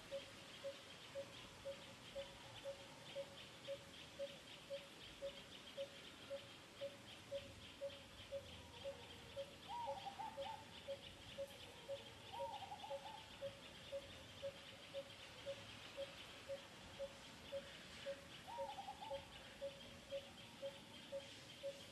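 Outdoor animal ambience: a single hollow note repeated evenly about twice a second, over a steady high chirring. A few short squeaky calls come in around the middle and near the end.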